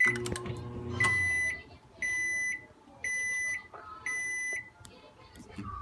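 Samsung microwave oven sounding its end-of-cycle alert: four identical high beeps, each about half a second long, one a second. A few clicks and a brief low hum come just before the first beep.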